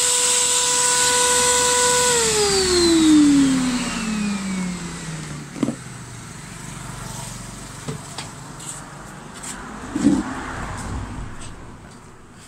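A hose-fitted electric cleaner's motor whining steadily, then switched off about two seconds in, its pitch falling as it spins down over the next few seconds. A few light knocks follow, the loudest about ten seconds in.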